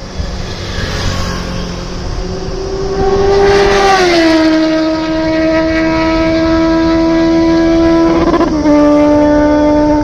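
Suzuki GSX-S750's inline-four engine at high revs. A rush of noise builds into a loud, steady whine about two and a half seconds in. The whine rises slightly, then drops in pitch about four seconds in and again just past eight seconds.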